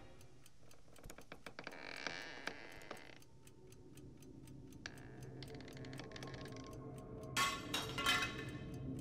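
Steady, fast mechanical ticking, about five ticks a second, over a low hum, with two short, louder rushes of noise near the end.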